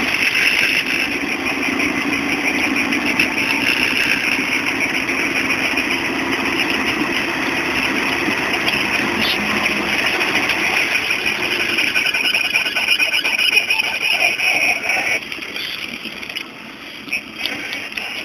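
Rover Mini's A-series four-cylinder engine and road noise while driving, steady and then dropping noticeably about fifteen seconds in. The car has a noise while driving from somewhere around the suspension.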